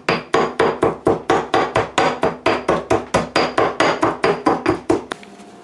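Stone pestle pounding wet seasoning of scallions, garlic and thyme in a stone mortar, grinding it to a paste. The strikes come fast and even, about five a second, and stop about five seconds in.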